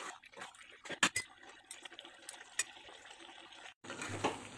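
Metal spatula stirring a thick simmering stew in an aluminium wok: faint bubbling of the sauce with a few sharp clinks of metal on the pan, about a second in and again midway.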